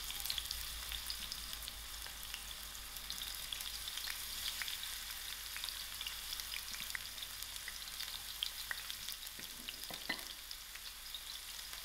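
Sliced onions sizzling in hot oil in a stainless steel pan, a steady high hiss with many small scattered pops and crackles as they start to soften.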